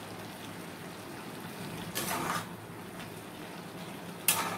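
Snake gourd pieces cooking in a kadai over a gas burner with a faint steady hiss. There is a short scrape about two seconds in, and near the end a spatula scrapes loudly against the pan as stirring starts.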